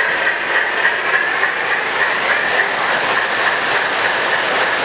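Model railroad train running on a layout, a steady, unbroken mechanical noise.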